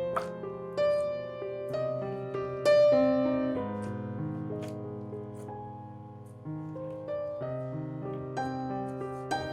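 Background music: a slow piano melody, single notes and chords struck one after another and left to ring out.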